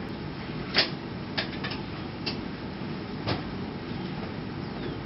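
Cab of a standing PCC streetcar: a steady low hum with about five sharp clicks and knocks as the operator works the controls. The loudest click comes about a second in.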